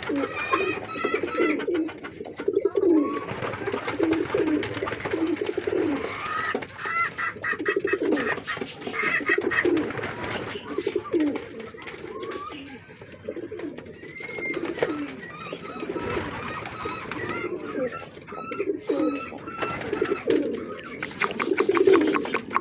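A flock of homing pigeons cooing, many short low calls overlapping one after another.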